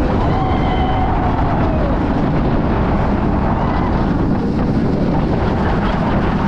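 Wind rushing over a wrist-mounted camera's microphone during a roller coaster ride on Phoenix Rising: a loud, steady roar. A faint high tone glides down in the first two seconds.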